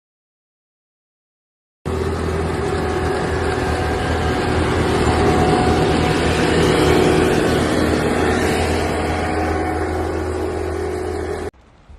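A motor vehicle's engine running steadily under a heavy hiss. It starts abruptly about two seconds in after silence and cuts off suddenly near the end.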